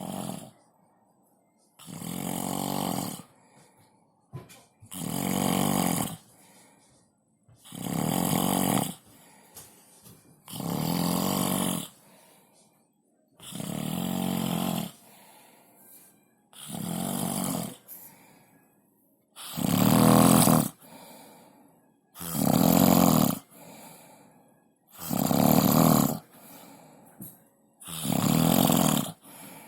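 A drunk person snoring in sleep, about one snore every three seconds, each lasting a little over a second. The snores grow louder about two-thirds of the way through.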